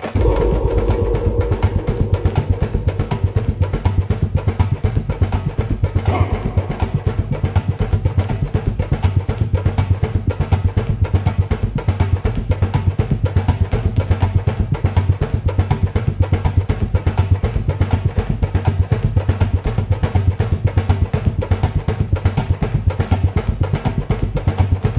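Music with a fast, dense drum pattern over a deep, steady bass, starting abruptly and running on at a constant loud level.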